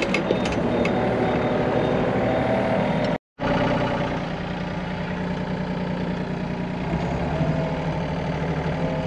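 Compact excavator's diesel engine running steadily, heard from inside its cab. The sound cuts out completely for a moment about three seconds in.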